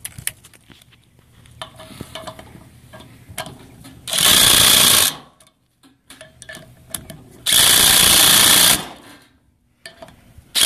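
Cordless brushless impact driver hammering nipple cups into a Ford 6.0L diesel's high-pressure oil rail in two bursts of about a second each, a few seconds apart. A third burst starts right at the end. Small metal clicks of the socket and parts being handled come before and between the bursts.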